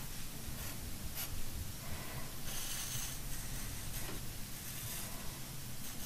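Pencil scratching on watercolor paper in a few light strokes, drawing thin branching lines.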